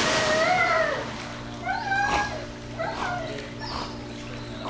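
The splash of a dog's dive into a pool dies away as the dog swims, under a string of high-pitched dog whines that rise and fall in pitch. The longest whine comes at the start and shorter ones follow about two and three seconds in.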